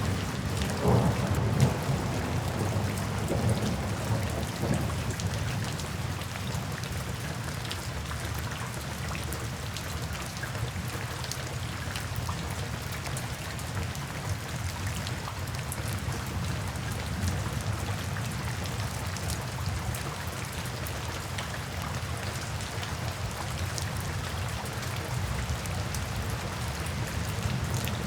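Steady rain falling on a surface, with individual drops ticking through it. A low roll of thunder rumbles in the first few seconds and fades away.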